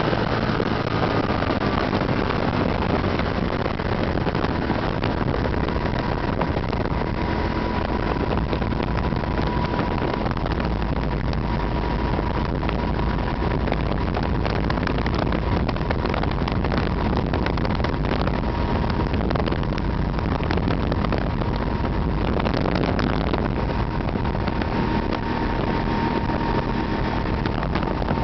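Quad City Challenger II ultralight aircraft in flight, heard from the cockpit: its engine runs with a steady drone under heavy wind rush, with a thin steady whine on top.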